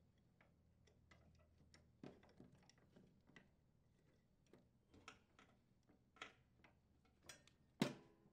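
Faint, scattered clicks and taps of a Toro snowblower's rubber auger blades and metal center plate being handled and seated on the auger, with one sharper knock near the end.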